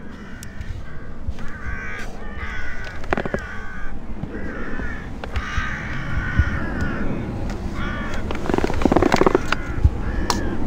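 Crow-type birds cawing, many short harsh calls one after another, with a louder, lower call near the end, over a steady low rumble.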